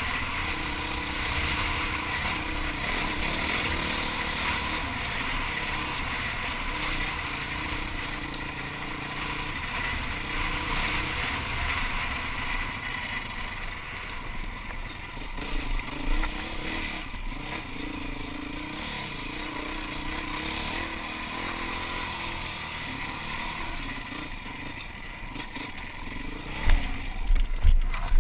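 Enduro motorcycle engine running on a rough trail, its pitch rising and falling with the throttle, under heavy wind noise on a helmet-mounted camera. Water splashes through puddles early on and there are a few loud knocks from bumps about halfway and near the end.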